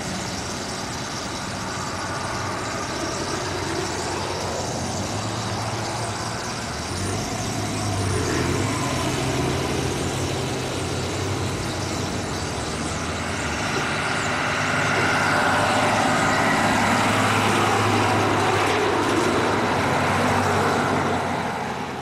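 Steady hum of road traffic and an engine under the dense, continuous chatter of a huge flock of birds gathering in roadside trees and on power lines. The bird din grows louder a little past halfway through.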